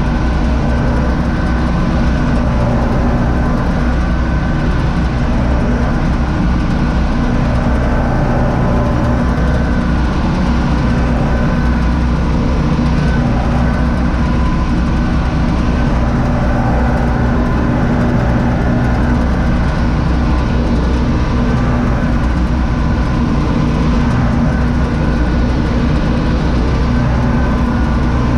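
Universal U650 tractor's four-cylinder diesel engine running steadily under load, heard from inside the cab, mixed with the running mechanism of a trailed Zmaj Zemun 223 corn picker harvesting maize.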